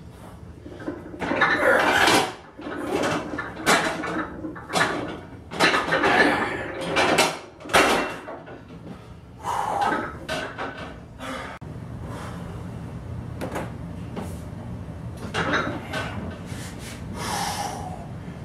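A lifter breathing hard in short, loud, forceful blasts while straining through and recovering from a 500-pound vertical leg press single. The breathing eases about twelve seconds in over a steady low hum.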